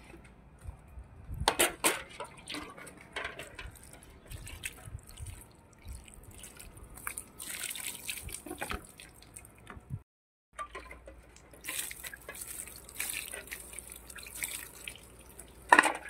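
Water poured over sliced sponge gourd and string beans on a plate, splashing and dripping in uneven spurts as the vegetables are rinsed. A sharp knock near the end is the loudest sound.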